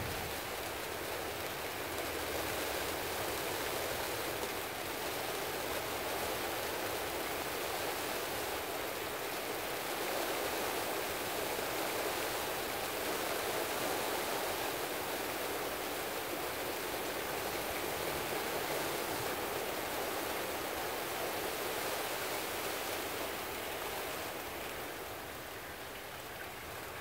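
Steady rain falling, a little quieter near the end.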